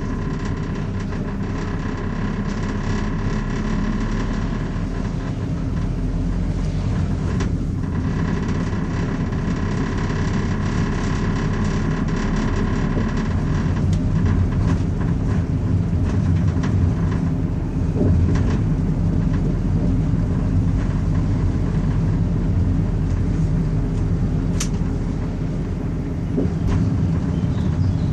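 Car driving, heard through a dashcam inside the cabin: steady engine and tyre rumble on the road, with a faint steady higher tone over the first half that stops about halfway through.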